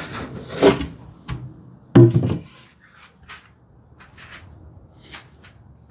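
A wooden drawer being handled on the bench: wood rubbing and scraping, a heavier knock about two seconds in, then a few light taps.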